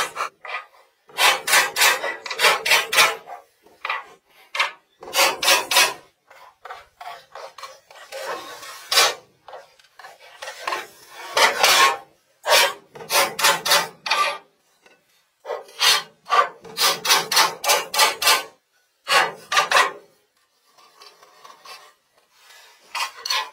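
A hand tool scraping across wood in quick back-and-forth strokes, coming in bursts of three to six strokes with short pauses between.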